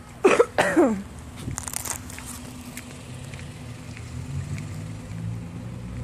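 Two short vocal sounds from a person in quick succession, each falling steeply in pitch, then a brief rustle and a steady low hum.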